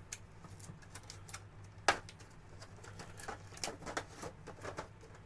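Packaging of a model kit being opened and handled by hand: irregular rustles, crinkles and small clicks, with one sharper click about two seconds in.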